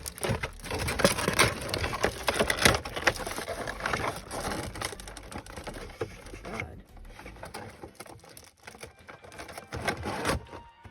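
Rapid, irregular crinkling and clicking of plastic and cardboard figure packaging being handled, busiest in the first half and sparser toward the end.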